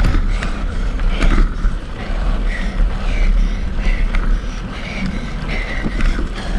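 Mountain bike being ridden over a dirt trail: a steady rumble of wind on the microphone and tyres on the ground, with a few sharp knocks as the bike goes over bumps.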